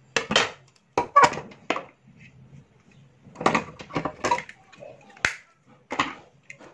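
Clusters of sharp clicks and knocks from plastic modular switchboard parts being handled and fitted together.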